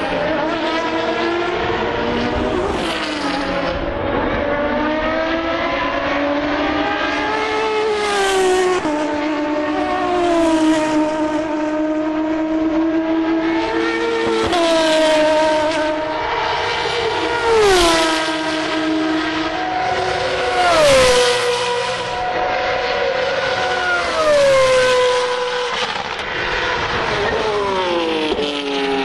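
Single-seater formula race cars passing at speed one after another, about six passes. Each engine note swells and then drops in pitch as the car goes by.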